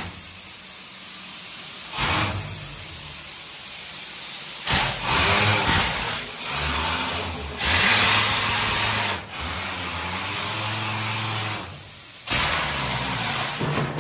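Compressed-air mine locomotive running with a low mechanical hum, broken by several loud bursts of air hissing a few seconds apart.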